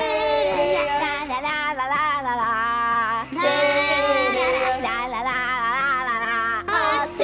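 Female singing of a children's song in Portuguese over a musical backing, with long held notes and vibrato, broken by two short pauses between phrases.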